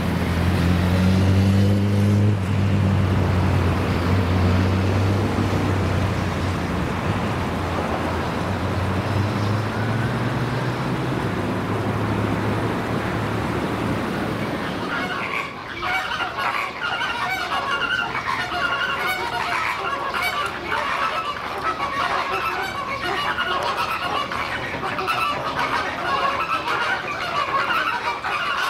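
A motor vehicle's engine runs with a low, steady hum that fades over the first half. About halfway through the sound changes abruptly to a dense, busy stretch of bird calls.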